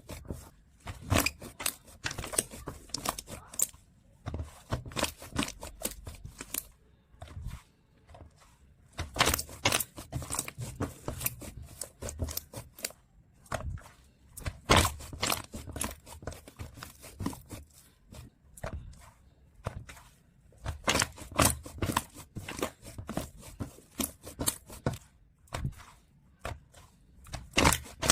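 Hands squeezing, stretching and pressing a snow-textured foam slime, making dense crackling, crunchy pops that come in bursts of a few seconds with short pauses between.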